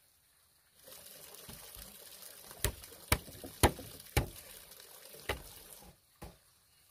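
Bamboo knocking on bamboo, about six sharp knocks, as a bamboo rail is worked into its joint on a bamboo post, over a steady hiss.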